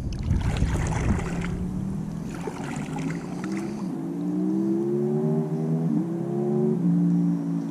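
Water splashing twice in the first few seconds, then the steady hum of a motor that slowly rises in pitch, steps up about six seconds in and drops again shortly before the end.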